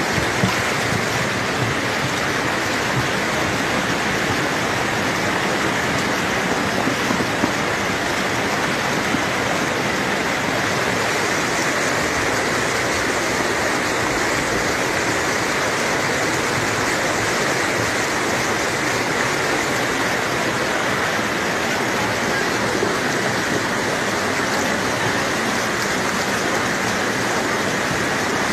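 Muddy floodwater from a small stream, swollen by days of rain, rushing down a village street as a steady torrent.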